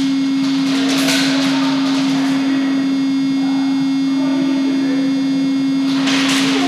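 Steady electric buzz of the small anti-fog fan inside a player's airsoft goggles, one unwavering low-pitched hum. Two short rushes of noise break over it, about a second in and near the end.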